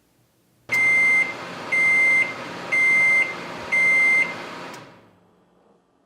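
Electronic beeper sounding four loud, high-pitched beeps, about one a second and each about half a second long, over a hiss that comes and goes with them.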